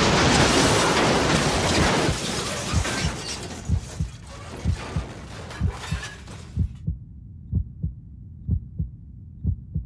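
A car crash: a loud rush of impact and scraping noise that dies away over the first couple of seconds. Then comes a thumping heartbeat sound effect, double beats about once a second. The crash noise cuts off suddenly about two-thirds of the way through, leaving the heartbeats alone.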